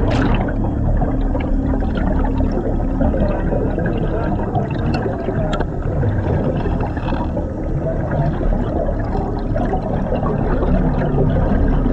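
Steady underwater bubbling and gurgling around a commercial diver's helmet, with scattered small clicks.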